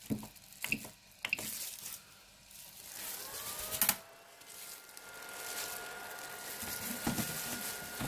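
A 3D printer's rotary control knob clicks a few times as the bed temperature is set. As the heated bed starts heating, a faint whine from the printer rises in pitch and settles into a steady tone, with one sharp click about four seconds in.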